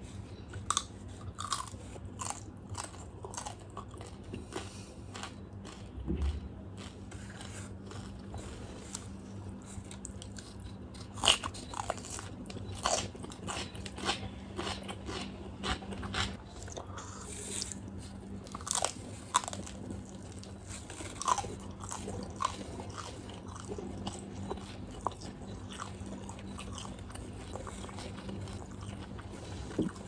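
Close-miked eating: chewing fried quail and crunching through its small bones, with irregular sharp crunches, some louder than the rest.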